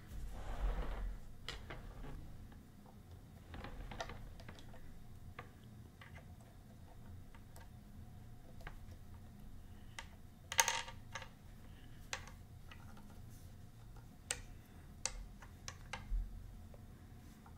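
Irregular light clicks and taps as small statue parts are handled and fitted onto a collectible statue's legs and base. The loudest is a sharp clack about ten and a half seconds in.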